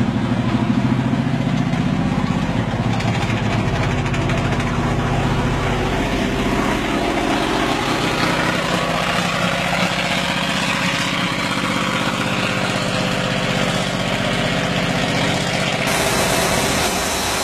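M32 tank recovery vehicle's engine running as the tracked vehicle moves off slowly, a low, steady engine note. About 16 s in it cuts abruptly to a steady hiss of road and wind noise.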